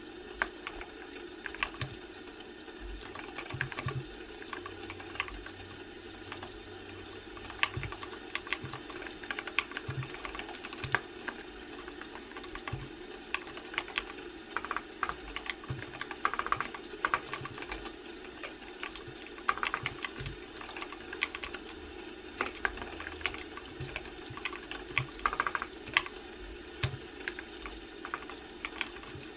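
Typing on a computer keyboard: irregular runs of keystroke clicks with short pauses between them, over a steady low background hum.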